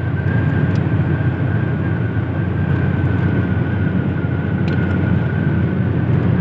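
Steady road and wind noise of a car cruising at motorway speed, heard from inside the cabin, with a thin steady high whine running through it.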